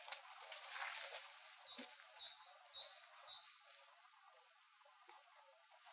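Footsteps rustling through dry grass fade out over the first three seconds or so. Meanwhile a small songbird repeats a two-note high–low phrase four times, about twice a second, over a faint steady outdoor hiss.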